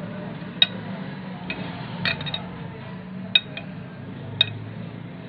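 A spatula clinking and tapping against the rim of a glass bowl while spreading whipped cream, giving about six to eight light, irregular clinks, a few of them close together.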